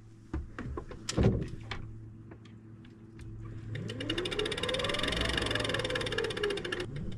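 Electric downrigger motor winding, its whine climbing in pitch, levelling off and falling away again, with a rapid, even clicking over it; a steady low boat-motor hum runs beneath, and there is a single knock about a second in.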